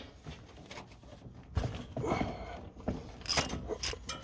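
Hand tools and engine parts being handled during a spark plug change: a stretch of rubbing and scraping, then several sharp metallic clicks and clinks near the end.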